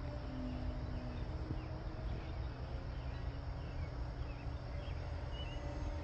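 Faint steady drone of a distant RC aerobatic plane's motor and propeller, over wind rumble on the microphone, with small birds chirping repeatedly.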